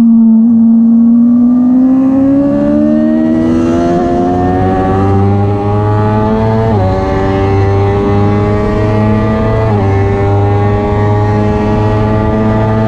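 A Suzuki sportbike's inline-four engine, heard from onboard, accelerating hard through the gears. Its pitch climbs steadily and drops sharply at upshifts about seven and ten seconds in.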